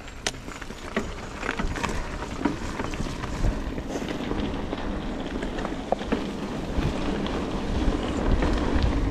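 Mountain bike rolling fast down a gravel trail: tyres crunching over the gravel with a low rumble, wind buffeting the camera microphone, and scattered sharp rattles and clicks from the bike. It gets louder toward the end as the bike picks up speed.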